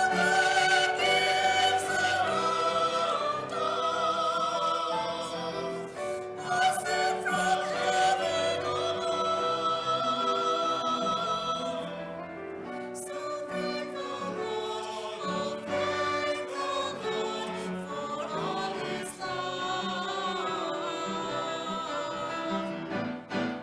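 Music with singing voices: long held notes that waver with vibrato over accompaniment, a little quieter from about halfway through.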